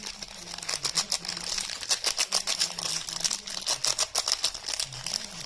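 Soap being unwrapped and handled: wrapping crinkling with a fast, dense run of crackling clicks.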